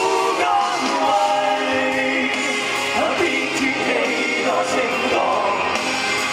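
A Cantopop song with several voices singing together over the band's accompaniment.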